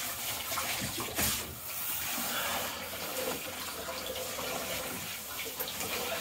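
Handheld shower head spraying water onto a wet dog's legs and into a shallow pool of bathwater in a tub: steady running water, with a brief louder noise about a second in.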